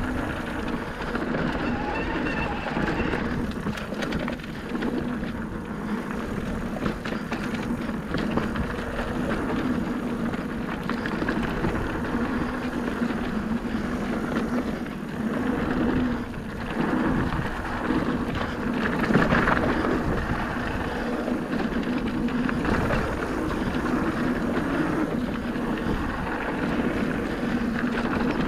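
Merida eOne-Sixty e-mountain bike descending a dirt trail at speed: tyres rolling and crunching over dirt and loose stones, and the bike rattling. Wind rushes on the microphone, and a steady low hum runs underneath.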